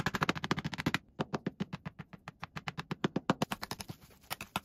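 Kitchen knife chopping boiled egg on a cutting board in rapid, even strokes, about ten a second, with a short break about a second in; the strokes thin out and grow irregular near the end.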